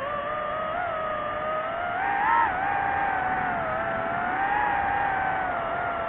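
DJI FPV drone's motors and propellers whining, the pitch rising and falling with the throttle. The pitch climbs right at the start and peaks loudest about two seconds in, then dips and rises again.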